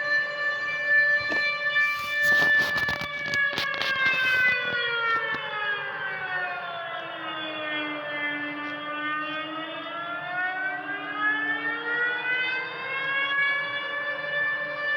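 Civil defence warning siren wailing: a steady tone that slowly falls in pitch over several seconds and then rises back again, sounding the alarm for a flood. A burst of crackling comes from about two to four seconds in.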